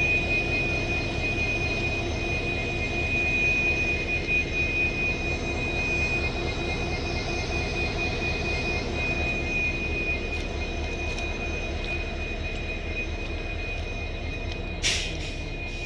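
Two coupled Indian Railways WDG4 and WDG4D diesel-electric locomotives running with their EMD two-stroke diesel engines humming: a steady low drone under a constant high whine, fading slightly. A brief sharp noise comes near the end.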